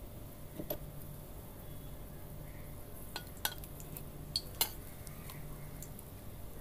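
Metal ladle clinking and scraping against a kadai as a dry red chilli is stirred in hot mustard oil: a handful of light clinks, most of them from about three seconds in.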